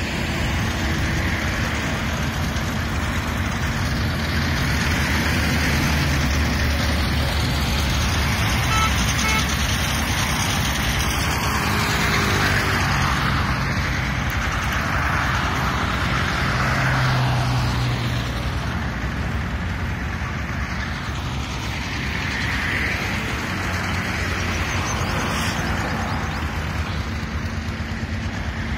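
Steady engine hum and road noise of a moving vehicle, heard from on board as it drives along, rising and falling gently with no sharp events.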